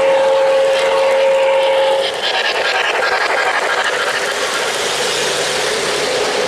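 O-gauge model trains running on three-rail track: a steady rolling rumble of wheels, with quick clicks over the rail joints in the first few seconds. A model locomotive's sound system sounds a steady whistle tone that stops about two seconds in.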